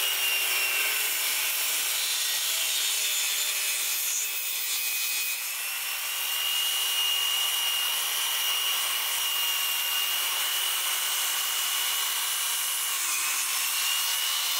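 Electric circular saw running and cutting lengthwise through an old wooden board, a steady cutting noise with a high whine from the motor and blade. The whine rises slightly about five seconds in and dips near the end.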